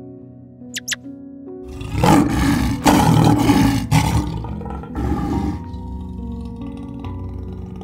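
Lion roaring: one long, loud roar starting about two seconds in, then a shorter one about five seconds in, over background music.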